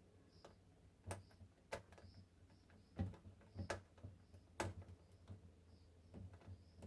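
Scattered small clicks and knocks of parts and tools being handled during assembly of a homemade speaker, a few sharper ones in the middle, over a faint steady low hum.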